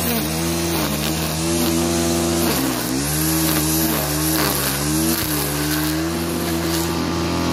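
Stihl FS 87 two-stroke brush cutter running at high revs while its trimmer head cuts grass. The engine pitch dips under load and recovers several times, most deeply about two and a half seconds in.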